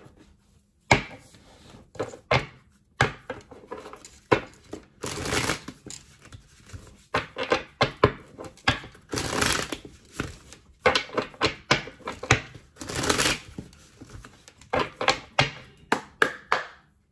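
Tarot and oracle cards being shuffled and handled: a run of quick card snaps and taps, with a few longer swishing shuffles.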